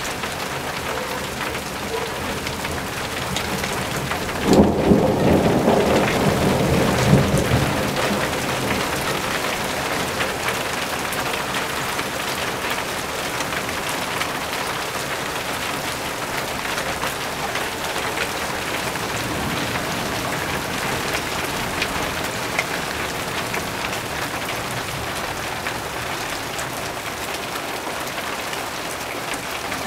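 Steady rain falling throughout, with a thunderclap about four and a half seconds in that rumbles loudly for a few seconds, flares once more, then fades back under the rain.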